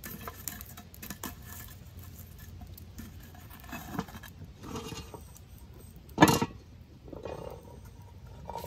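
Charcoal briquettes scraping, crunching and clinking on a cast-iron Dutch oven lid as a metal lid lifter works the coals, with one loud metal knock about six seconds in as the lifter catches the lid.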